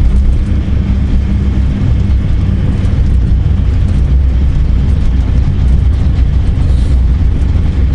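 Vauxhall Astra GSi rally car's engine running at steady revs, heard from inside the stripped, caged cabin, with road noise mixed in.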